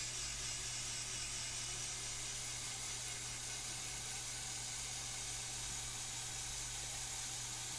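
Steady hiss with a low hum underneath, unchanging throughout: background noise of the recording, with no distinct drilling sound standing out.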